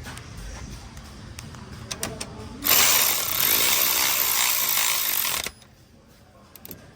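A power tool runs for about three seconds, driving down a bolt on the engine oil cooler line bracket, and then stops abruptly. A few sharp clicks come just before it starts.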